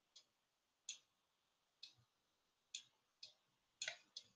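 Near silence broken by about eight faint, sharp clicks, roughly one a second and bunched closer together near the end: computer mouse clicks while drawing digits on a whiteboard app.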